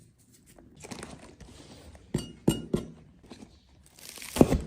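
Light rustling of leafy greens being handled, then a kitchen knife chopping on a cutting board: three strokes about two seconds in and a quick cluster near the end.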